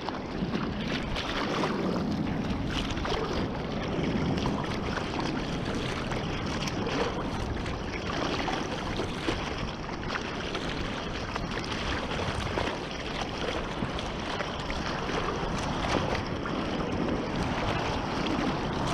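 Wind buffeting the microphone over the steady rush of ocean surf, with frequent short gusts.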